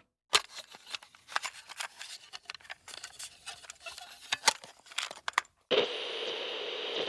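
Footsteps on a concrete floor, heard as light, irregular taps and clicks. About six seconds in, a steady hiss takes over.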